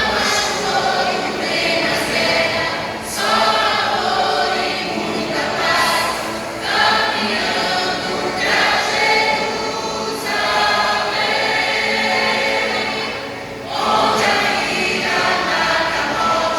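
A church vocal group singing a gospel worship song together in sung phrases of about three to four seconds.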